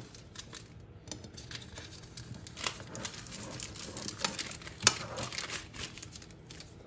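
Crinkling and rustling of greaseproof paper and plastic as a stack of paper-layered raw parathas is handled and lifted from a plate, with a sharper crackle about five seconds in.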